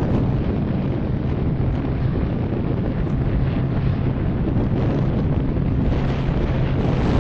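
Steady drone of a T-6 Texan II's turboprop engine and propeller on its takeoff roll, mixed with heavy wind noise on the microphone.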